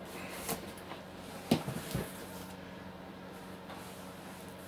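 A small cardboard box being handled and set down on a bench. There is a light tap, then one sharp knock about a second and a half in and a duller thump just after, over a steady low hum.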